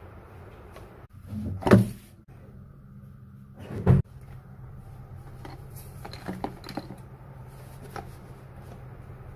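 Parts of a portable mini vacuum cleaner being handled: two sharp clacks and then a few lighter clicks over a low steady hum.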